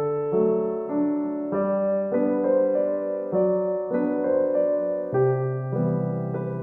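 Background piano music: slow notes and chords, a new one struck about every half second to a second.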